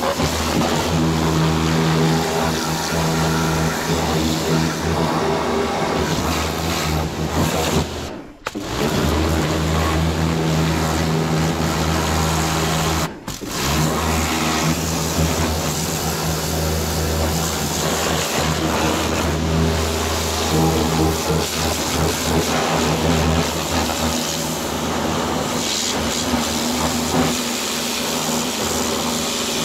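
Pressure washer running with a steady motor hum and the hiss of the water jet. It breaks off briefly twice.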